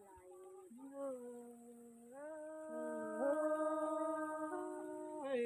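An elderly woman singing a traditional Thái folk song unaccompanied, in long held notes that slide up into pitch, with a wavering vibrato on the loudest note around the middle.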